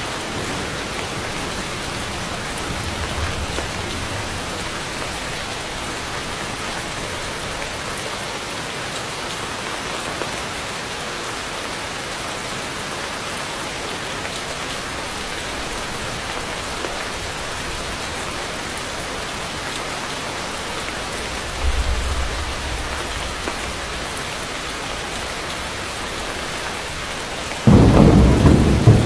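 Heavy rain falling steadily, with a low rumble of thunder about three quarters of the way through and a loud thunderclap rolling on near the end.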